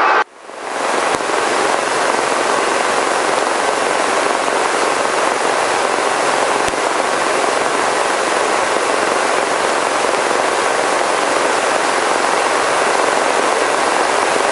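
Robinson R44 helicopter heard from inside the cabin: a steady rush of rotor, engine and airflow noise as it hover-taxis to its pad after landing. The sound cuts out briefly right at the start, then fades back up.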